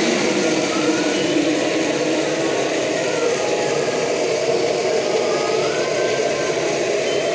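Steady roar of a gas burner under a large iron kadai of simmering chicken curry.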